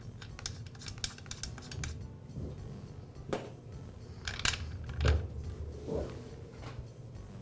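Small metallic clicks and clinks as a spark plug is threaded by hand into a trimmer engine's cylinder and a spark plug wrench is fitted over it to tighten it. A few sharper clicks come past the middle.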